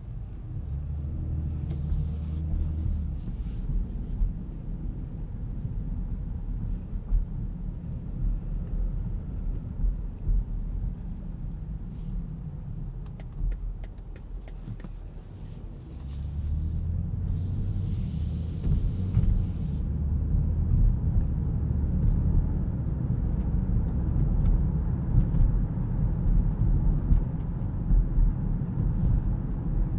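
Inside the cabin of a BMW X5 xDrive40i on the move: the low hum of its 3.0-litre six-cylinder engine and tyre rumble, growing louder from about sixteen seconds in as it picks up speed. A few faint clicks come in the middle, and a short hiss a little later.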